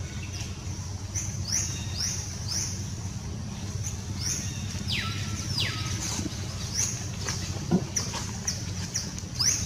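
Birds calling with short, high, downward-sliding chirps, about one or two a second, including two longer falling calls midway, over a steady low hum.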